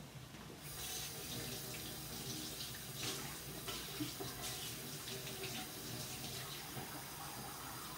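Kitchen faucet running steadily into a stainless steel sink, turned on about a second in.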